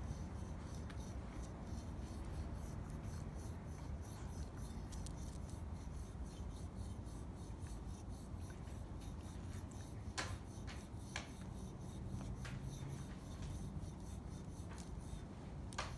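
A plastic-headed back scratcher rakes back and forth through a Dandy Dinmont Terrier's coat, making a steady stream of quick scratching strokes. A few sharper clicks stand out about ten seconds in and again near the end.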